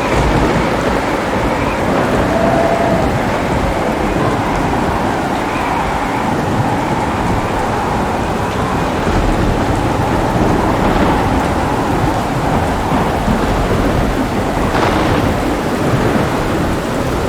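Steady heavy rain with deep, rolling thunder that sets in suddenly at the start and rumbles on.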